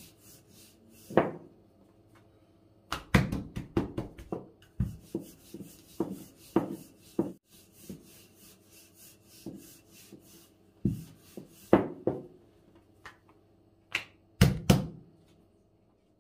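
Thin wooden rolling pin working baklava dough on a wooden tabletop: irregular knocks and clacks of the pin on the table and dough, with soft rubbing between them. The knocks come in a quick run a few seconds in and as a close pair near the end.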